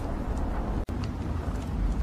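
Wood fire burning in a fireplace: a steady low roar of flames with scattered small crackles and pops from the logs. There is a momentary dropout in the sound just under a second in.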